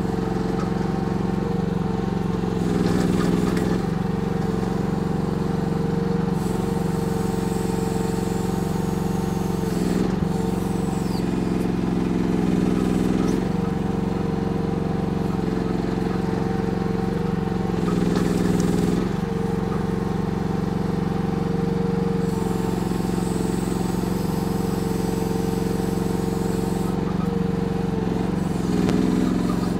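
Kymron YH14 mini excavator's small gasoline engine running steadily under digging load, its note shifting every few seconds as the boom and bucket are worked through clay.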